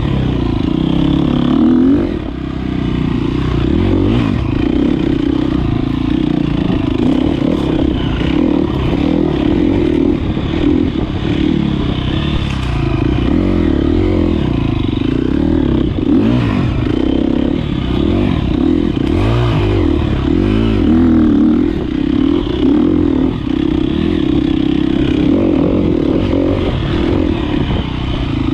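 Single-cylinder four-stroke engine of a 2013 KTM 250 XC-F dirt bike, ridden hard off-road, its revs rising and falling continuously with throttle and gear changes.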